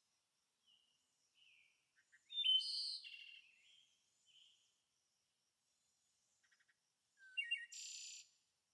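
Songbirds chirping and calling in short, scattered phrases with silence between them. The loudest chirps come about two and a half seconds in and again near the end.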